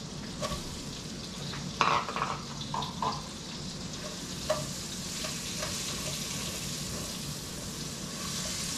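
Sliced white onion sizzling as it fries in hot butter and olive oil in a skillet. There are a few knocks and clatters of stirring against the pan in the first half, and the sizzle grows a little louder near the end.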